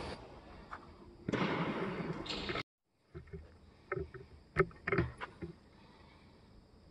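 Handling noise from a hunter moving with an air rifle: a noisy burst about a second long, then, after a brief dropout, several scattered short knocks and clicks.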